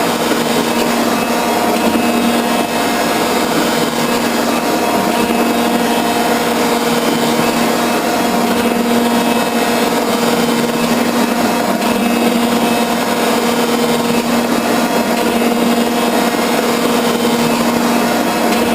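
Metal shaper running through a finishing cut on steel: a steady machine hum over a continuous hiss.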